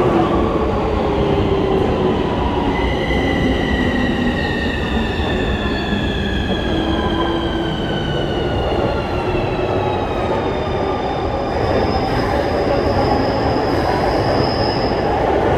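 Keikyu electric trains at a station platform: one train running out while the next pulls in, with a steady rumble of wheels on rail. A high electric motor whine glides slowly down in pitch over several seconds, and a fainter high tone follows near the end.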